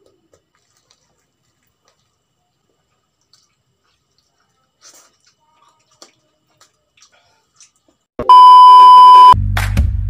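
Faint clicks and crunches of fried chicken being torn and eaten. About eight seconds in, a loud steady electronic beep lasting about a second, then intro music with a heavy bass beat.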